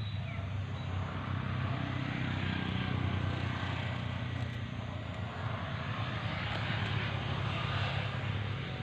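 A steady, low engine drone that holds an even level throughout.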